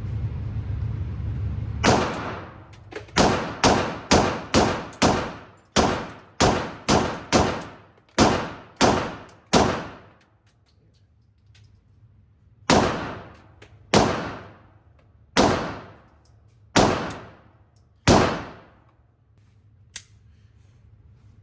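Smith & Wesson M&P pistol firing: a quick string of about fourteen shots, then five slower, evenly spaced shots.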